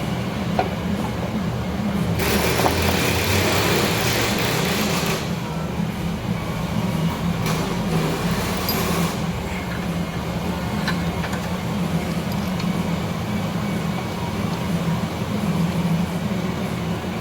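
A steady low machine hum, with two bursts of hissing: one for about three seconds starting about two seconds in, and a shorter one near the middle.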